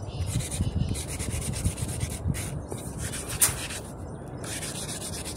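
80-grit cloth-backed sandpaper rubbed hard over plywood by hand in repeated rasping strokes, levelling the surface before polishing.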